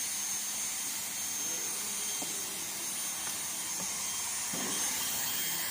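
Heat gun running with a steady blowing hiss and a faint high whine, as it heats a PVC patch onto the canopy to weld it on.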